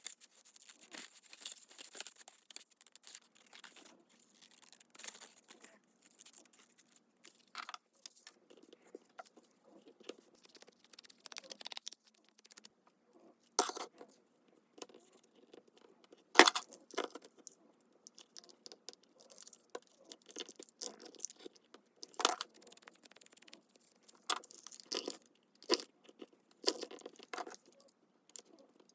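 Paper-crafting sounds: paper rustling and tearing, with scattered sharp taps and clicks, the loudest about halfway through.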